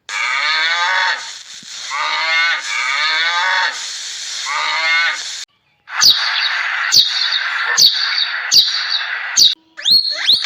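A cow mooing, a series of drawn-out calls that fall in pitch. After a cut about halfway through, a noisy stretch follows with a run of sharp knocks and high chirps.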